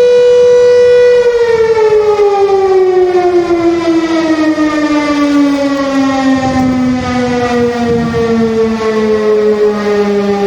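Civil defence emergency siren sounding in a scheduled test. It holds a steady wail, then about a second in it winds down in a long, slow fall in pitch. Near the end a second siren tone comes in over it.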